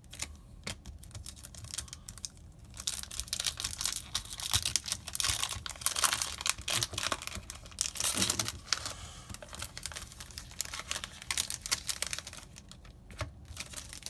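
Foil trading-card booster pack wrapper crinkling as it is torn open by hand, a dense run of sharp crackles that starts about three seconds in and dies away near the end.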